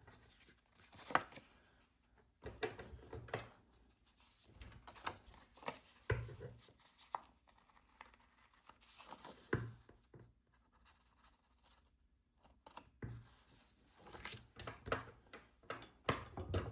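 Paper stickers being peeled off their backing sheet and pressed onto planner pages: short rustling, tearing peels and light taps on and off, with a quiet stretch about ten to twelve seconds in.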